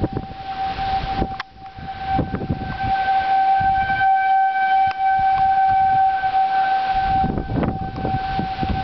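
Outdoor civil-defence tornado warning siren sounding a steady, unbroken tone. It swells louder for a few seconds in the middle, then eases back.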